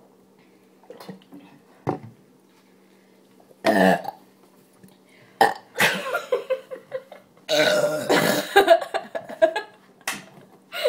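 People burping, carbonation forced up by gulping fizzy soda: a string of separate burps, with big loud ones about four seconds in and a longer one lasting over a second near eight seconds in.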